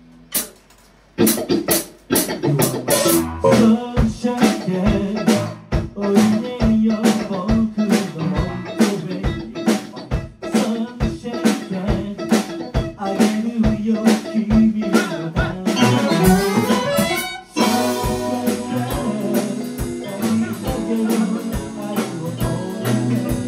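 A small live band starts playing about a second in: drum kit, electric guitar and keyboard together, with steady drum beats. A brief break comes about seventeen seconds in before the band carries on.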